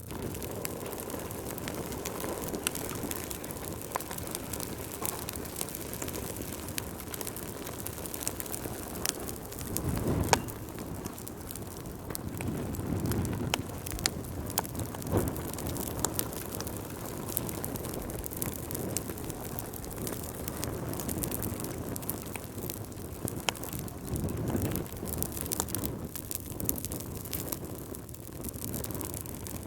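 Wood fire burning in a fireplace: a steady hiss with frequent sharp crackles and pops, and a few louder low rushes of flame, the strongest about ten seconds in.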